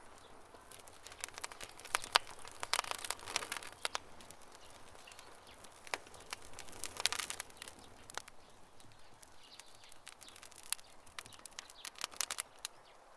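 Wood campfire crackling, with irregular sharp pops and snaps that come in clusters over a soft steady hiss.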